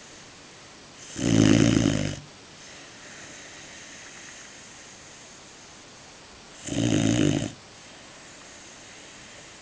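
Greater Swiss Mountain Dog puppy snoring in its sleep: two loud snores, each about a second long and some five seconds apart, with quiet between.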